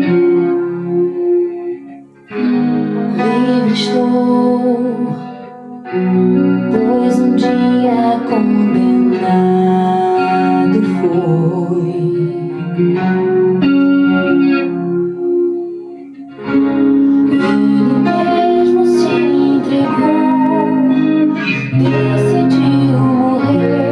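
Guitar improvising over a recorded song that has singing in it, with the music thinning out briefly about two seconds in, around five seconds in and again around sixteen seconds in.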